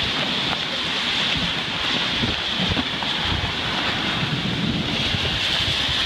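Heavy rain pouring steadily in a strong windstorm, with gusts buffeting the microphone and making an uneven rumble under the hiss of the rain.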